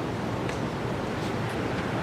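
Wind blowing steadily, a constant rushing noise with a few faint short high ticks.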